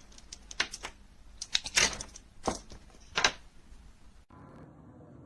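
Small plastic clicks and knocks from a Noctua NA-FC1 fan controller and its 4-pin fan connector being handled and fiddled with, the loudest few between about one and a half and three and a half seconds in; the plug does not seat securely. Near the end the sound cuts abruptly to a steady low hum.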